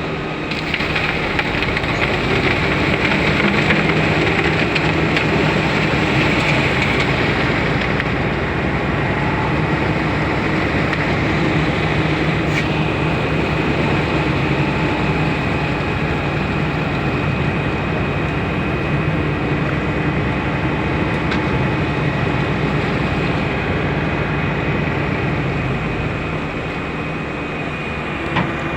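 Diesel engines of a concrete transit mixer truck and a backhoe running steadily, with a high steady whine over the engine noise.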